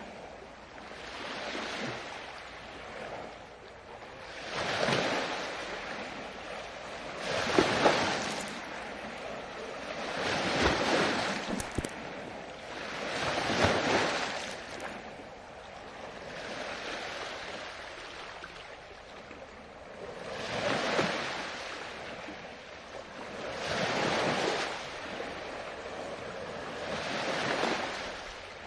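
Ocean waves washing ashore in a steady rhythm, each breaker swelling to a rush and fading, about one every three seconds.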